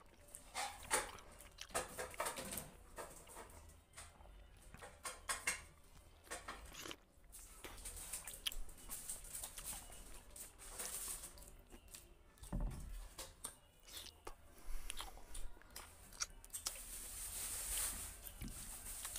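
A person eating rice and fried rohu fish by hand, close to the microphone: irregular chewing and lip-smacking clicks, with fingers working the rice on the plate.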